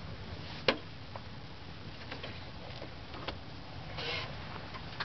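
Knocks and clicks of boots and hands on an excavator's steel track, grab handles and cab as the operator climbs aboard: one sharp knock about a second in, then scattered lighter clicks and a short rustle near the end.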